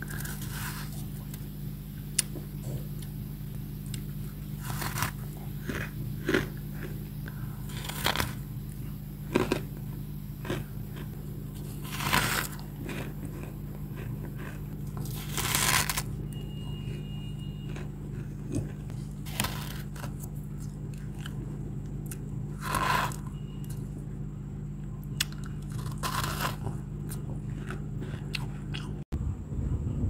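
Crispy bites and chewing of humidifier freezer frost, the packed ice crystals crunching in the mouth in separate bites every few seconds, over a steady low hum.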